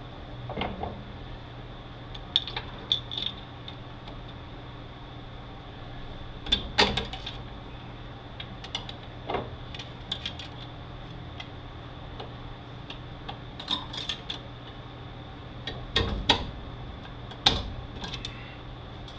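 Irregular sharp metallic clinks and knocks, a dozen or so scattered through, the loudest around seven seconds in and near the end: hand tools striking and rattling against the steel gears and shaft of a manual transmission while a stuck part is worked off. A steady low hum runs underneath.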